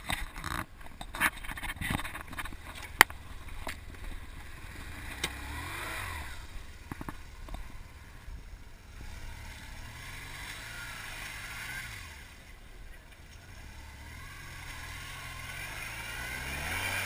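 Knocks and clatter as a BMW GS motorcycle is hauled upright out of the mud, the sharpest knock about three seconds in. Then its engine runs and revs, rising and falling several times as the bike is ridden off through the mud.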